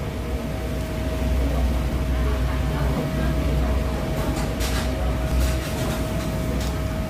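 Restaurant room noise: a steady low rumble with a constant hum over it, and a few light clatters about four to five seconds in.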